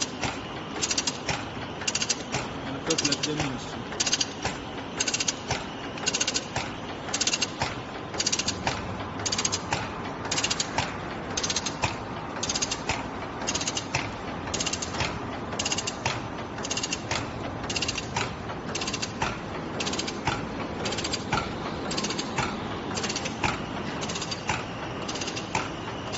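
ZJ-217 HuaEn fabric pleating machine running and pleating cloth: a steady mechanical clatter with sharp, evenly spaced clacks about one and a half times a second.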